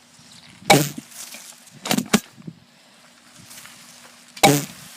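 Spring airsoft gun fired twice, a few seconds apart, with a quick double clack between the shots as it is re-cocked.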